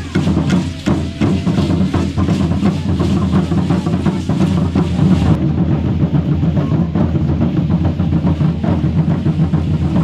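Ceremonial drums beating a steady rhythm of about three strokes a second.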